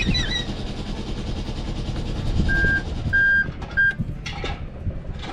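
A boat's engine idling with a low, steady rumble, and about two and a half seconds in, three short high-pitched electronic beeps in quick succession.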